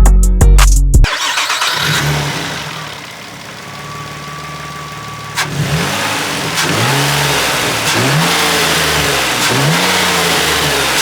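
Nissan Altima engine fitted with a new cold air intake, first running steadily, then revved in quick throttle blips about once a second after a sharp click about halfway through. A bit of music ends about a second in.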